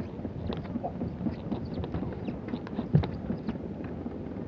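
Ski-area magic carpet conveyor belt running under skis: a steady low rumble with irregular light clicks and one louder knock about three seconds in.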